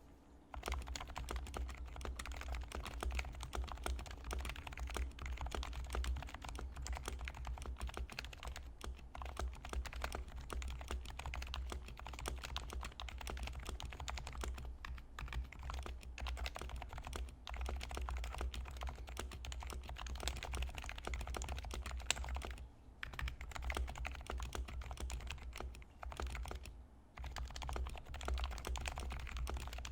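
Continuous typing on an HHKB Professional 2 keyboard with 45 g Topre switches silenced with hyperspheres and lubed with Krytox 205g0. The keystrokes are a fast, dense run of muted clicks, starting about half a second in and pausing briefly twice near the end.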